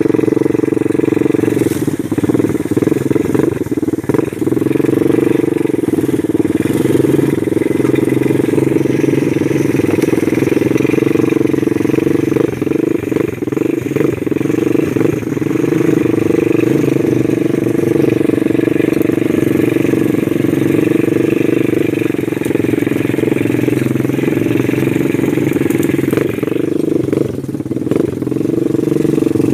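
Small ATV's engine running at a steady, even pitch while being ridden.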